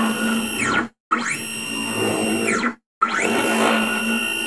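Stepper motors of a MaxNC 15 OL desktop CNC mill driving the X-axis table back and forth at 150 inches per minute. Each move is a loud whine that climbs in pitch as the table accelerates, holds steady, then drops as it decelerates to a stop. One move ends just before a second in, a full move runs from about one second to nearly three, and the next starts around three seconds.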